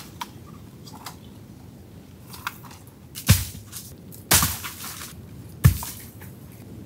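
Coconuts dropped from a palm tree hitting the ground: three heavy thuds a little over a second apart, the first the loudest. Lighter snaps and clicks come before them.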